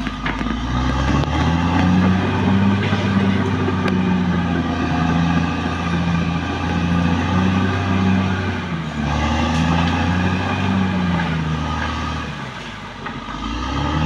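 Caterpillar D6R XL bulldozer's diesel engine running while it works, with a pulsing throb and the pitch and loudness shifting as the load changes; near the end it drops briefly, then picks up again.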